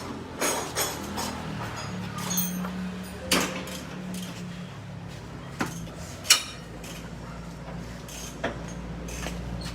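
Scattered sharp metallic knocks and clanks of tools and parts during suspension repair work, about seven irregular strikes with the loudest a little past six seconds in. Under them runs a low steady hum.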